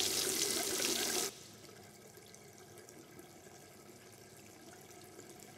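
Water from a tap splashing into a washbasin. It is loud for just over a second, then runs on much more quietly.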